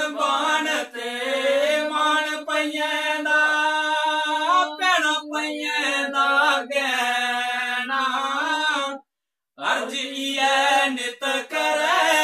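A man singing a Dogri folk song in long, drawn-out notes over a steady low drone. The sound cuts out for a moment about nine seconds in.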